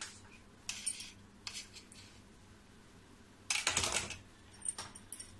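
Kitchen utensils being handled: scattered light clicks and taps of a steel knife and a steel plate on a granite countertop as cut dough strips are lifted off. The loudest is a quick clatter of several clicks about three and a half seconds in.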